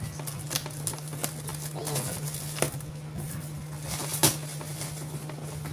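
Scissors snipping and scraping through packing tape on a cardboard box: scattered sharp clicks and snips, the loudest about four seconds in, over a steady low hum.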